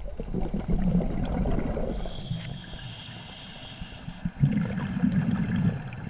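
Scuba diver breathing through a regulator underwater, with exhaled bubbles, recorded through a GoPro's underwater housing: an uneven low rumble that swells with each breath.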